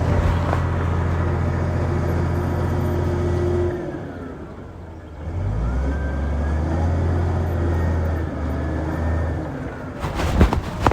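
Diesel engine of a heavy earthmoving machine running steadily. It drops away about four seconds in, then picks up again at a slightly different pitch with a faint rising and falling whine. Near the end a rough, crackling noise takes over.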